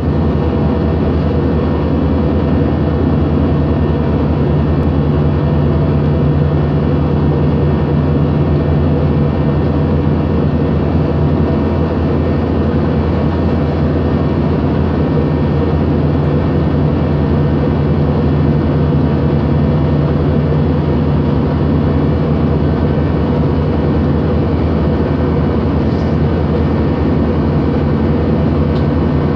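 Steady cabin noise inside an airliner in flight: the constant drone of engines and rushing air, with a strong low hum.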